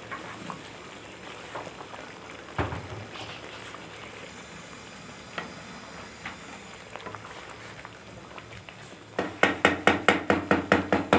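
Shashlik gravy simmering in a karahi with a low, steady bubbling hiss, broken by a few light clicks and a single knock about two and a half seconds in. About nine seconds in, a spoon stirs against the metal pan in quick, loud strokes, about six a second.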